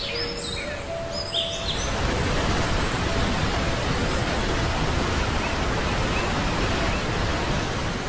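Birds chirping, then about two seconds in the steady rush of a waterfall swells up and holds, with a few faint bird chirps over it.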